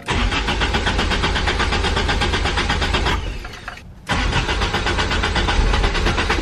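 Starter cranking the 1986 Toyota Corolla AE86's 4A-GE four-cylinder engine in a fast, even rhythm, two cranks of about three seconds each with a short pause between, the engine not catching. It is a hard start after new fuel parts, with little or no fuel pressure built up yet.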